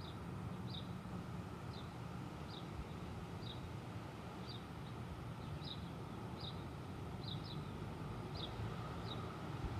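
A small bird chirping, short high chirps about once a second at uneven spacing, over a faint steady low rumble of wind.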